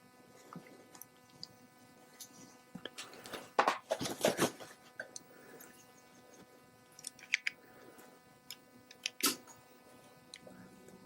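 Small hand tools clicking and scraping against a small-engine carburetor while a stuck jet is worked loose, with a run of louder scraping strokes about four seconds in and a single sharp click near the end.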